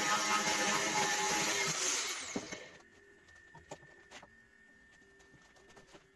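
Angle grinder with an abrasive disc cutting into a steel bar held in a vise. About two and a half seconds in it is switched off and its whine falls away as the disc spins down. After that come a few light clicks and knocks as the cut steel is handled.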